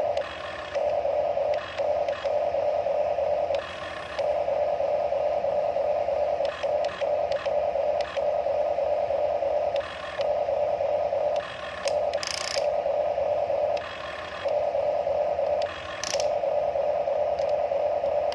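Huina remote-control toy excavator's small electric motors whining as it works its boom and bucket. The whine runs in stretches of one to two seconds with short pauses, and there are clicks from the gearing between them.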